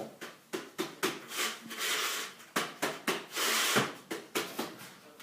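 Stretch-ceiling connecting profile being pressed and worked along a plastic perforated corner bead set in wet mortar: a string of short clicks and knocks, with longer scraping rubs about two seconds and three and a half seconds in.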